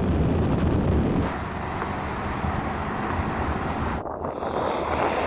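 Tuned BMW 3 Series cars at speed, engine and road noise mixed with wind on the microphone. The sound shifts abruptly about a second in and again about four seconds in.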